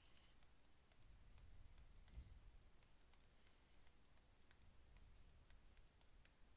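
Faint, scattered clicks and taps of a stylus tip on a pen tablet during handwriting, over a low hum, with a soft low bump about two seconds in.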